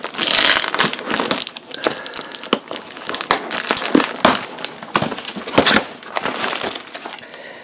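A worn cardboard shipping box being opened by hand: flaps pulled and folded back, with irregular crinkling, crackling and scraping, loudest in the first second and softer after.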